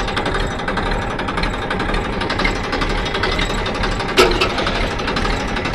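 Massey Ferguson tractor's three-cylinder diesel engine running steadily, heard from the driver's seat as a fast, even clatter, with one sharp knock about four seconds in.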